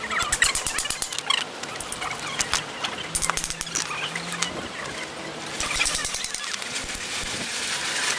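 Irregular sharp knocks of hammering on a timber frame, with high squeals among them.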